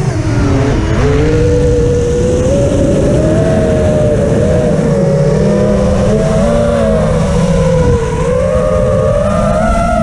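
Electric motors and propellers of an FPV drone whining, heard through its onboard camera's microphone. The pitch dips sharply just after the start, then climbs and wavers up and down with the throttle, over a low rush of wind noise.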